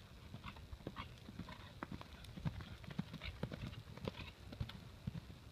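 Hoofbeats of a Quarter Horse gelding walking on a soft dirt arena: an irregular series of dull thuds.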